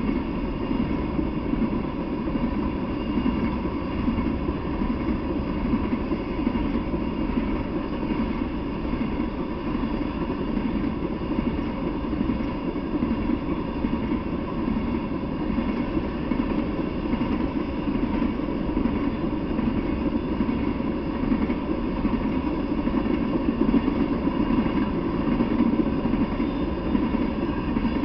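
Freight train of tank cars rolling past, with a steady rumble of steel wheels on the rails.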